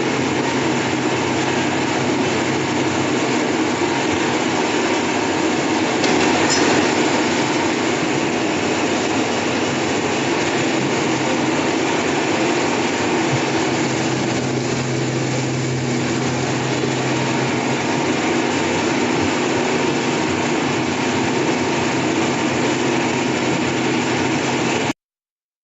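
A potato peeling and washing machine running: a steady mechanical rumble with a low motor hum, cutting off abruptly near the end.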